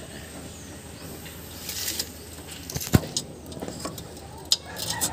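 Scattered metallic clicks and clinks of handbrake cable and rear drum-brake parts being handled and fitted by hand, with one sharp knock about three seconds in.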